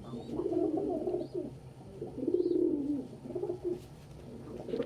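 Male domestic pigeon cooing in several low, wavering phrases, the loudest about two seconds in, with a short lull near the end.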